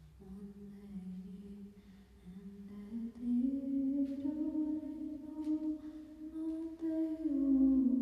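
A voice humming a slow, wordless melody in long held notes. The pitch steps up about a third of the way through and drops again near the end.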